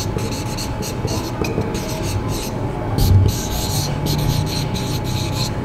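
Marker pen rubbing across a whiteboard in many short strokes as numbers and a box are written, over a steady low hum.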